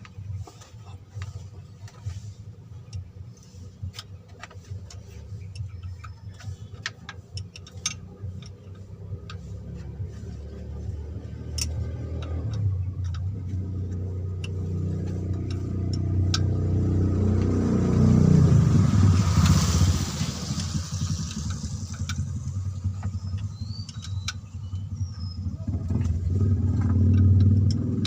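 A vehicle engine running, its sound rising to a peak about two-thirds of the way through, dipping, and rising again near the end, with light clicks and taps in the first half.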